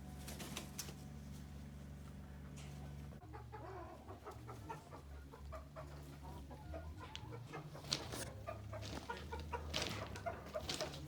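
Backyard hens clucking, with many short calls scattered through the second part. Before that there is a steady low hum for about three seconds.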